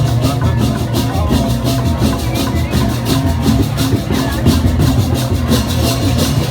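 Balinese procession music: percussion ensemble playing a fast, even rhythm of strokes, several a second, over a dense low drum and gong sound.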